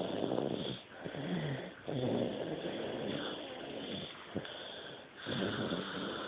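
A sleeping baby snoring loudly: several long, noisy breaths in a row, with brief pauses between them.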